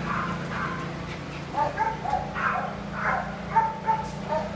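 A dog barking and yipping in play: a quick run of short, high barks starting about one and a half seconds in.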